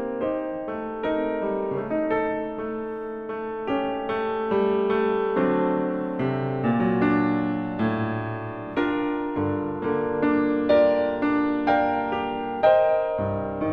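Instrumental piano music, chords and melody notes struck and left to ring out.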